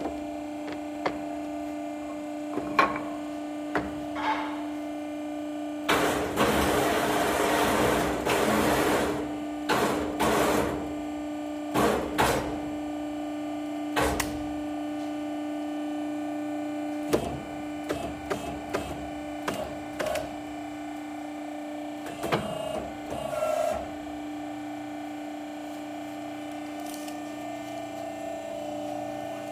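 Wood door assembly machine running with a steady hum, broken by a loud noisy burst of about three seconds about six seconds in and by scattered knocks and clicks as the wooden door frame is handled on it.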